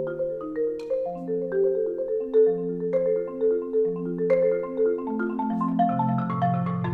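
Solo marimba (a Marimba One) played with mallets: a flowing stream of broken chords, each note ringing on over the next, with the bass line stepping down near the end.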